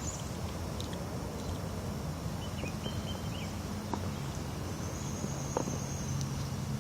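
Outdoor background: a steady low hum with a couple of faint sharp clicks and a brief faint chirp.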